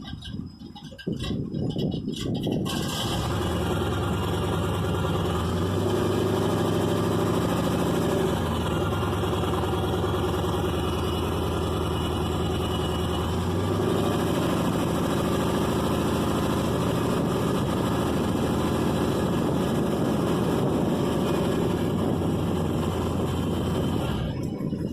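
Chevy K30's 468 big-block V8 running cold with no choke on its Holley carburetor, held on the throttle to keep it from dying and to clear it out. Engine speed rises and falls a few times. It sounds muffled for the first couple of seconds, then fuller.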